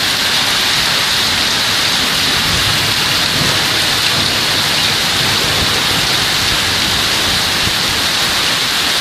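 Hailstorm: hail and heavy rain pelting down steadily onto paving, plants and parked cars, a dense, even hiss that does not let up.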